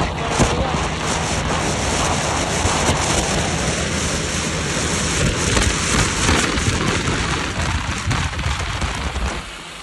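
Heavy wind rush on the microphone and road noise from a moving vehicle, with tractor engines running steadily underneath. The rush drops suddenly near the end.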